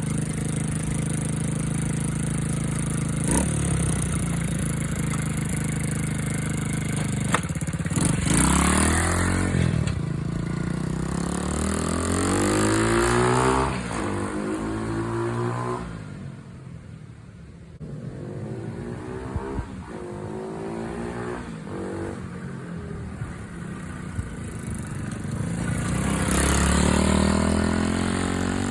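90cc pit bike's small single-cylinder engine being ridden, revving up in pitch several times as it goes up through the gears. It grows fainter for a few seconds in the middle as the bike rides away, then comes back louder near the end.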